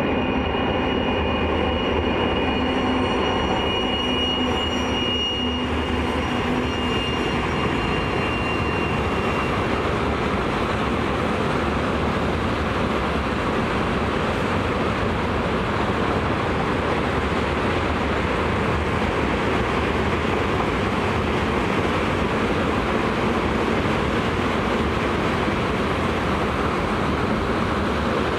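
2TE116 twin-section diesel locomotive passing at speed with a freight train of tank cars: the steady engine tones fade after about ten seconds, leaving a continuous rumble and rush of wagon wheels rolling on the rails.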